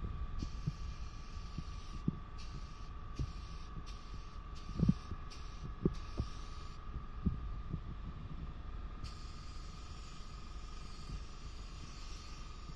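Paint spray gun hissing in on-off bursts as the trigger is pulled and released, laying down a white base coat: a longer burst near the start, several short ones, a pause, then a long pass near the end. A steady hum runs underneath, with a few low knocks.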